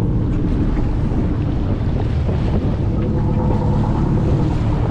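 Steady drone of a boat engine running, mixed with wind buffeting the microphone and water washing against the hull.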